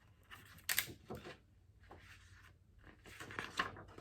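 Paper rustling as a picture book is handled and its pages turned: a few short rustles, the sharpest just under a second in and another cluster near the end.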